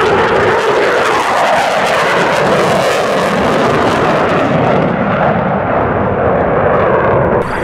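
An F-15 fighter's twin jet engines running in afterburner as it climbs away, a loud, steady jet noise. The high hiss fades out after about four and a half seconds as the jet draws off.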